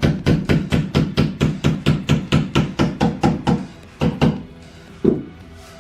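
Hammer knocking rapidly on a flat-pack desk drawer part, about four blows a second, driving the pieces tightly into place. The blows stop about three and a half seconds in, followed by two more single knocks.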